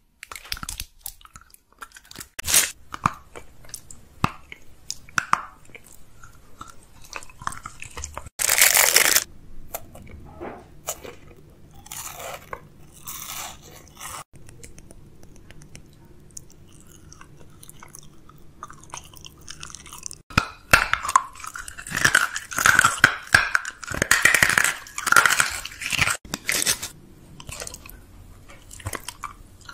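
Close-miked chewing and crunching of food. A loud burst of noise comes about eight seconds in, and the crunching grows dense and loud for several seconds past the twenty-second mark.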